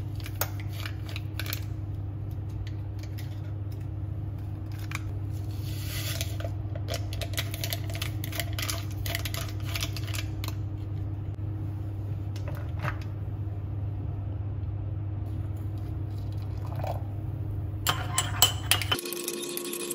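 Electric kettle heating with a steady low rumble, while a paper coffee sachet is torn and shaken into a ceramic mug with light rustling and clicks. Near the end there are a few clicks as the kettle is taken off its base, and the rumble stops suddenly.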